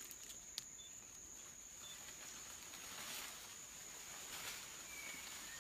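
Forest ambience: a steady high-pitched insect drone, with soft rustling and a few short, faint bird chirps.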